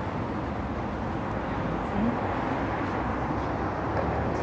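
City street traffic noise: a steady rumble of passing cars and buses.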